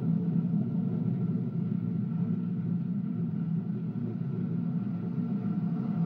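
Steady low droning rumble with several faint held tones above it and no beat, a dark ambient sound bed.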